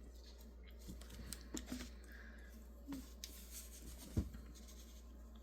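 Faint scattered clicks and light taps from handling stag-handled lockback pocket knives, the sharpest about four seconds in, over a low steady hum.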